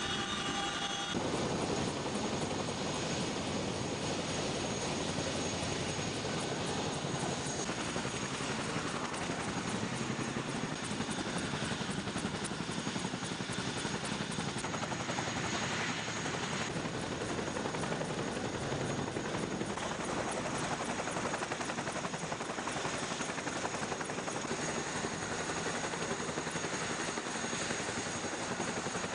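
CH-47 Chinook tandem-rotor helicopter running steadily: continuous rotor and turbine noise with a faint high whine.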